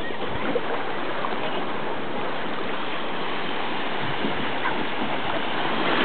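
Small waves washing up and running back on a sandy beach: a steady wash of water, with no single breaking wave standing out.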